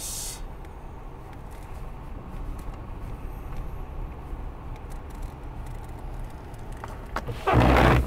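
Steady low road and engine rumble inside a car's cabin as it drives slowly over a wet, slushy street. Near the end, a windshield wiper sweeps across the glass with a loud, brief swish.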